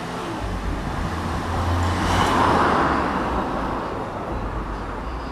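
A road vehicle passing by. Its tyre and engine noise swells to a peak about halfway through, then fades away.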